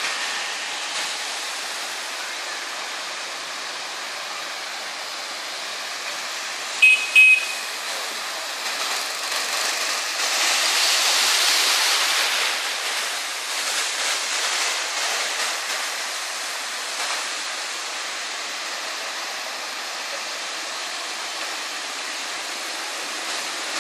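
Motorbike and car traffic wading through a flooded street: a steady wash of water splashing and hissing off the tyres, swelling louder for a few seconds near the middle as a vehicle passes close. Two short horn beeps sound about seven seconds in.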